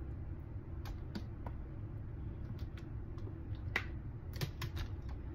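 Metal kitchen tongs clicking and tapping against a plastic bowl and foil as sauced chicken wings are lifted out and set on a foil-lined sheet pan: a scattering of sharp clicks, more of them in the second half, over a steady low hum.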